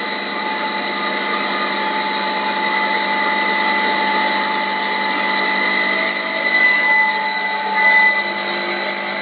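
Automatic-feed wood-turning lathe running: a steady high whine over rough mechanical noise, turning more uneven and rattling in the last few seconds.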